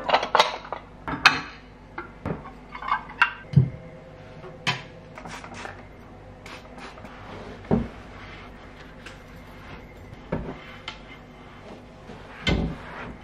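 Ceramic bowls and plates clinking and knocking against each other as they are lifted out of a kitchen cabinet. The clinks come quickly in the first few seconds, a couple of them ringing briefly, then thin out to a few scattered knocks.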